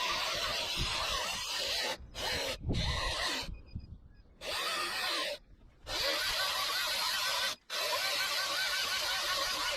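Battery chainsaw fitted with a Log Wizard debarking head, whirring as it strips bark from a log, its pitch wavering under load. It stops and restarts several times, with longer pauses of about a second near the middle and just past halfway.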